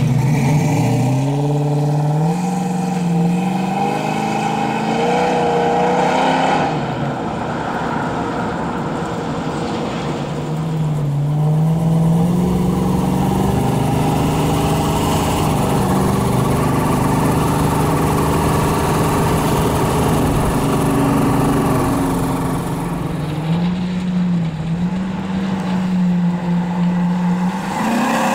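Swapped-in 6.0-litre LQ9 V8 with a performance cam and headers in an Oldsmobile Cutlass 442, driving and accelerating. The engine note climbs in pitch over the first few seconds, drops, climbs again, then holds fairly steady.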